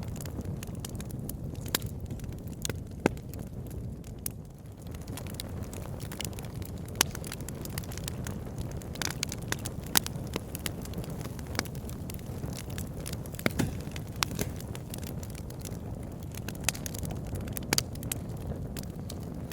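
Wood fire burning in a fireplace, with a steady low rush of flame and irregular sharp crackles and pops from the burning logs.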